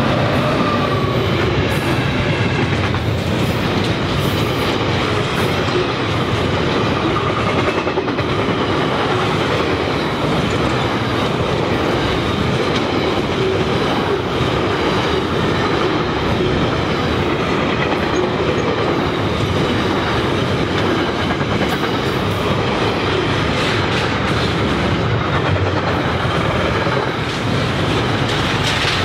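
Freight wagons of a long intermodal train rolling past at speed: a steady clatter of steel wheels on the rails.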